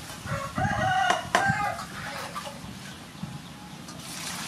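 A chicken calls once, a drawn-out call lasting about a second, with two sharp clicks during it. Near the end, water starts pouring into a bowl.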